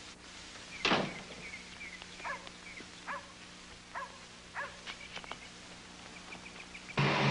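A dog barking at a distance: about half a dozen short barks spread over several seconds, the loudest about a second in, with faint high chirps between them. Near the end a loud steady noise with a low hum cuts in suddenly.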